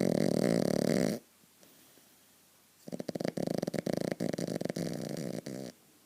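A sleeping dog snoring hard: two long, fluttering, buzzing snores. The first ends about a second in, and the second starts about three seconds in and lasts nearly three seconds.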